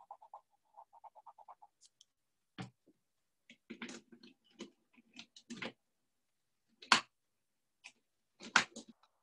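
Rapid back-and-forth colouring strokes on paper for the first second and a half or so. Then a scattering of sharp clicks and knocks, loudest about seven and about eight and a half seconds in.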